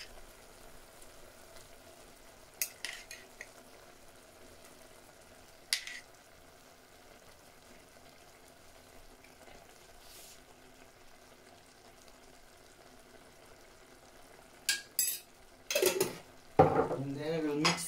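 Seafood and tomato sauce cooking in a clay pot over the fire: a faint, steady hiss. A few sharp clinks of a utensil against the pot come early, and a run of louder knocks and clatter follows near the end.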